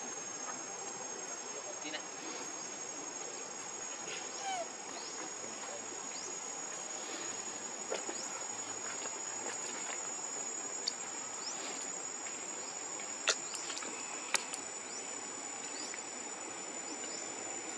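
Steady outdoor insect chorus: a continuous high-pitched drone with an even hiss beneath it. A few sharp clicks stand out in the second half.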